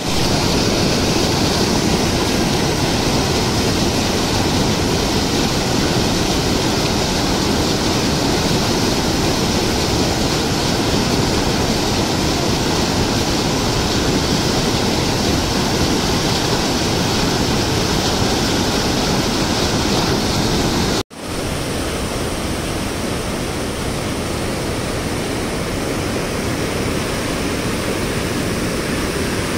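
Canal water churning through a weir's sluice gates: a loud, steady rush of turbulent floodwater. It drops out for an instant about 21 seconds in and continues a little quieter.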